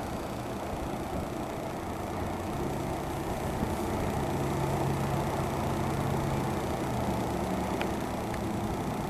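Boat engines running steadily, a low hum that swells slightly in the middle.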